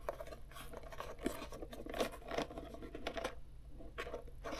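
Fingers pressing tape and tucking thin light wires against the inside of a hat: scattered light scratches and rustles with small sharp taps every second or so.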